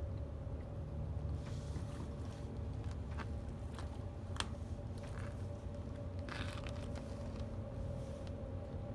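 Steady low rumble and faint hum of a 1,000 ft Great Lakes freighter's engines under way, with a few small clicks and soft splashes of water.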